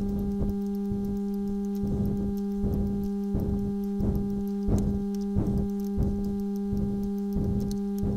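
Background music: a steady synthesizer drone with a regular pulsing beat, about one or two beats a second.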